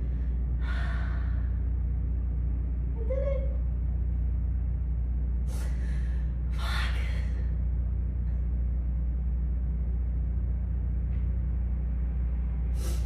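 A steady low hum, with a person's audible breaths on top: one about a second in and two more around six to seven seconds in.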